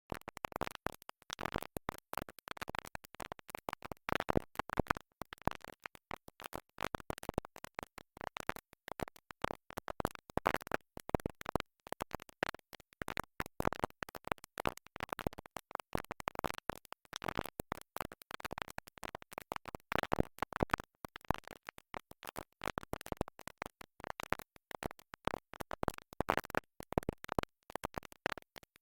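Vinyl record crackle: a dense run of irregular clicks and pops from the stylus in the groove, with no music coming through, as from a stuck record.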